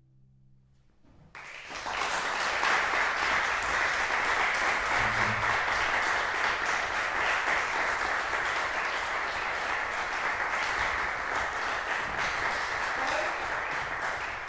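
The last chord of a bassoon and string quartet dies away, and about a second and a half in, audience applause breaks out and goes on steadily.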